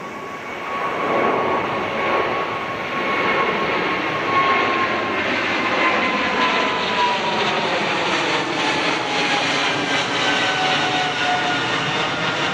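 Boeing 777-300ER's two GE90-115B turbofan engines at climb power as the airliner passes overhead. A loud, steady jet roar with a fan whine that slides gradually down in pitch as the plane goes by and away.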